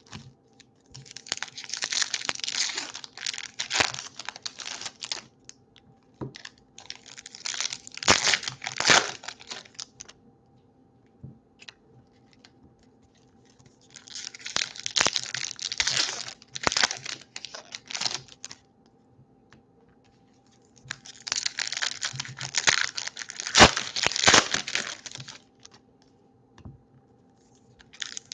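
Foil wrappers of trading card packs being torn open and crinkled by hand, in four bursts of a few seconds each with short pauses between, and another starting at the end.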